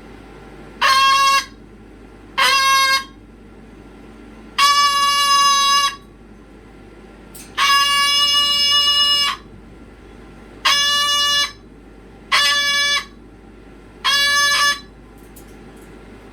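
A pet animal's loud, repeated, flat-pitched calls, seven in a row, each held from half a second to nearly two seconds with short pauses between, kept up insistently.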